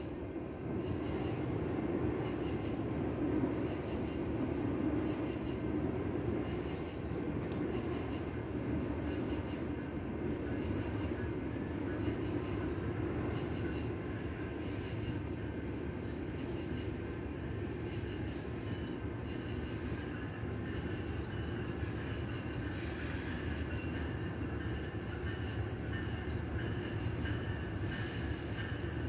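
Crickets chirping in a steady, even rhythm, about two chirps a second, over the low, steady rumble of a distant approaching train.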